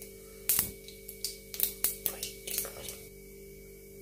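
Mustard seeds and urad dal popping in hot oil during tempering: a scatter of sharp, irregular pops, about a dozen over a few seconds.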